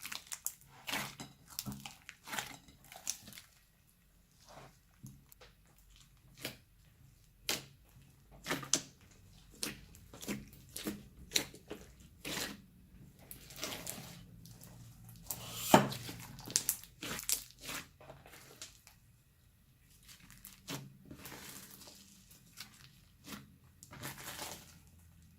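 Slime being mixed and worked by hand, giving irregular sticky pops and crackles, the loudest about halfway through.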